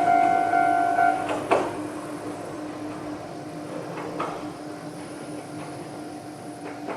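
A Japanese railway level crossing's electronic warning bell rings its steady two-tone alarm and cuts off about a second in, with a sharp knock just after, once the train has cleared the crossing. A faint steady hum and a few soft clicks follow.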